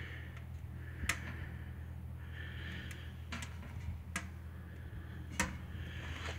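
A wood-fired welded-steel smoker heating up on its first burn: about four sharp ticks and pops, spaced a second or so apart, over a steady low hum.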